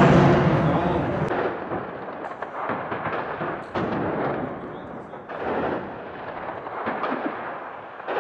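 Explosions and gunfire of urban combat: a loud blast at the start that rumbles away, then a string of sharp bangs every second or two, each trailing off in echo.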